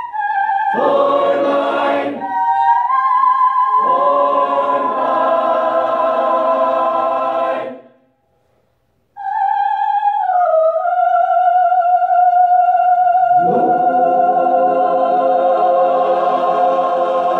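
High school choir singing: a sustained chord that cuts off about eight seconds in, then after a second of silence the high voices enter alone on a wavering held note, and the full choir joins them about four seconds later on a long held chord.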